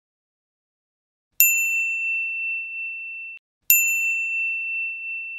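Two notification-bell ding sound effects from an animated YouTube subscribe-button end card, one about a second and a half in and one a little over two seconds later. Each is a single bright ring that fades over about two seconds and then cuts off suddenly.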